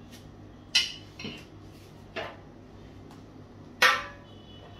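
Kitchen utensils and cookware knocking on a countertop as they are set down and picked up: four sharp clatters, the loudest about a second in and near the end, the last with a brief metallic ring.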